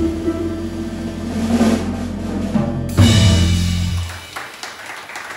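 Jazz trio of Hammond organ, guitar and drum kit playing the last bars of a tune: the drums build over a held organ bass note into a final accented chord with a cymbal crash about three seconds in, which rings for about a second and dies away. Scattered clapping starts near the end.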